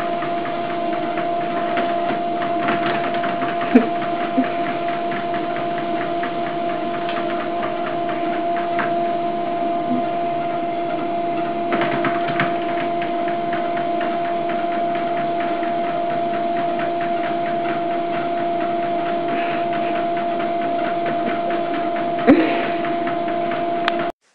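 Electric treadmill running: a steady two-note motor whine over a rapid belt rattle, with a few short thumps, loudest about four seconds in and near the end.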